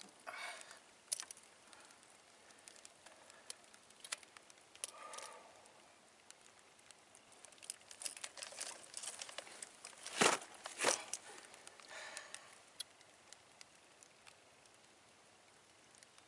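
Faint rustling and scattered clicks of a fish and fishing gear being handled in a small wooden boat, with two louder knocks a little past the middle.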